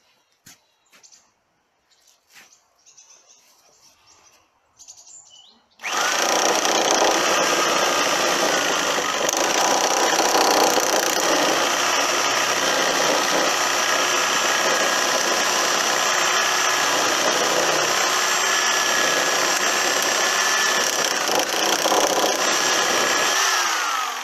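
Corded reciprocating saw with a Zubr 155713-21 (S1111K) 210 mm coarse-tooth wood blade, 3 teeth per inch, cutting through a raw birch log. After a few faint handling clicks it starts suddenly about six seconds in and runs at full speed, loud and steady, then winds down with a falling whine near the end as the trigger is released.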